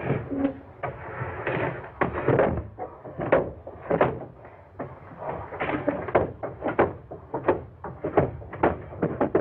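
Irregular heavy footsteps thudding and knocking on wooden stairs as a man goes down them, about two steps a second, over a faint steady hiss.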